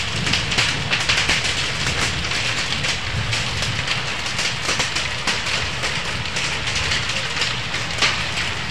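Hailstorm with heavy rain: hailstones and rain striking hard surfaces in a steady, dense clatter of many small sharp impacts.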